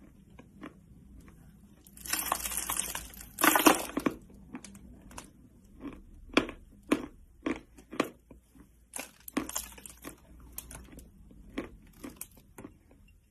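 A person biting into a lump of white chalk, with two crunchy bites about two and three and a half seconds in, followed by a run of short, crisp crunches as it is chewed, roughly one or two a second.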